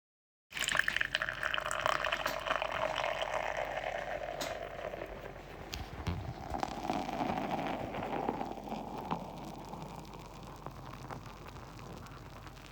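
Beer being poured into a glass, the splashing starting suddenly about half a second in and slowly growing quieter.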